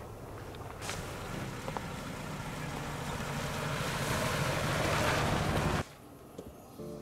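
Wind rushing across the microphone. It swells over about five seconds and then cuts off suddenly.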